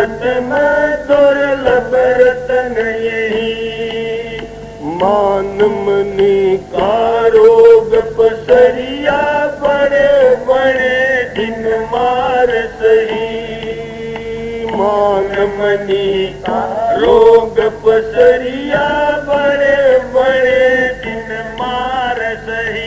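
A man singing a devotional shabad (hymn) in long held notes that slide up into each new phrase, over a steady drone accompaniment.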